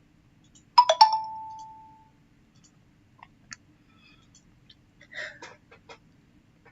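A small metal object striking a hard surface: a quick triple clink about a second in with a brief ringing tone that dies away, followed by faint clicks and handling noises.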